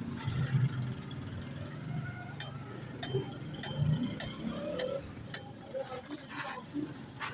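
A series of sharp, separate clicks, about six of them roughly half a second apart, over a faint low background murmur.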